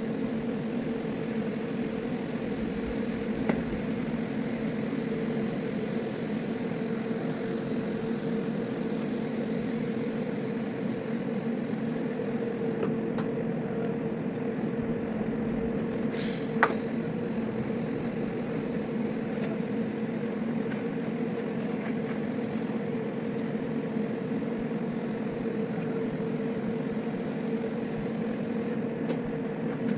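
Steady electrical hum and buzz of TIG welding, the welder and arc running without a break, with one sharp click a little over halfway through.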